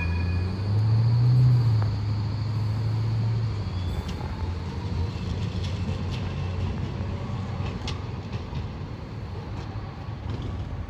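Electric tram pulling away from a stop. A low motor hum swells about a second in, rising a little in pitch, then fades as the tram moves off down the line.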